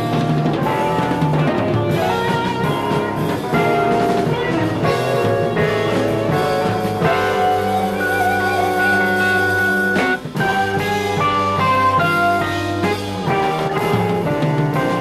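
A jazz-rock fusion quartet playing live on drum kit, electric bass, electric guitar and keyboards. A dense run of notes with a long held high note in the middle, then a brief drop in level just after ten seconds in.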